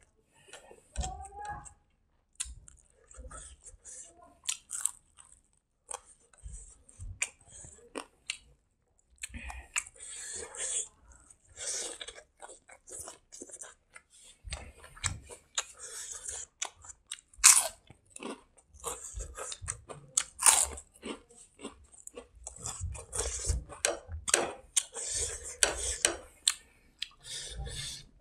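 A man chewing and crunching food close to a clip-on microphone: wet mouth sounds broken by many short, irregular crunches.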